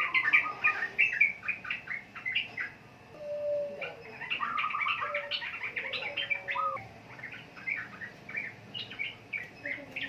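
Sooty-headed bulbul (trucukan) singing a rapid run of quick, chattering repeated notes, the fast 'ropel' style of song, with a few lower whistled notes midway.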